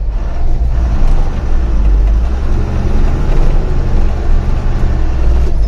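Truck engine running, with a heavy, steady low rumble.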